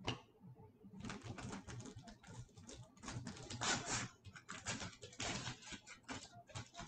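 A knock, then from about a second in, continuous crinkling and rustling of a hockey-card pack wrapper as hands handle and tear it open.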